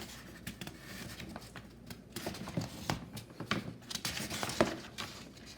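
Paper instruction booklet being handled, its pages rustling and crinkling in irregular crackles.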